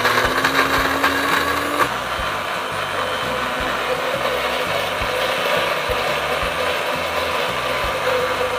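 Countertop blender running, grinding chopped spices (galangal, ginger, lemongrass, candlenut) with a little cooking oil into a paste. Its motor tone rises a little in pitch over the first two seconds as it comes up to speed, then the blender runs steadily.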